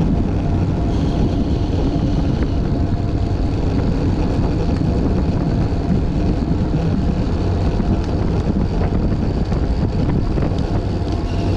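Steady low rushing rumble of wind buffeting the microphone of a camera on a moving bicycle.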